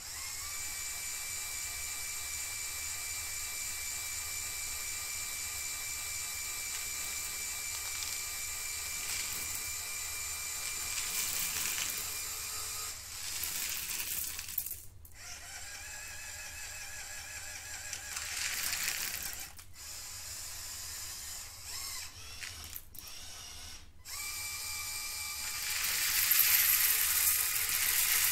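LEGO Technic Control+ electric motors whirring through the plastic gear trains of the Liebherr R 9800 excavator model as it is driven. It is a steady mechanical whine that stops and restarts a few times in the middle and grows louder near the end.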